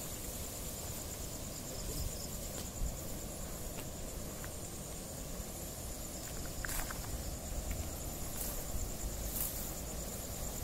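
Night insects trilling steadily in a continuous high-pitched chirr, over low rustling and footsteps through dry weeds, with a few short snaps.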